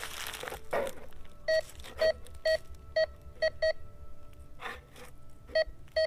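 MD-4030 metal detector beeping as its search coil is swept over a freshly dug hole, signalling a metal target still in the soil. About eight short, identical beeps come at uneven intervals, some in quick pairs, after a brief rustle at the start.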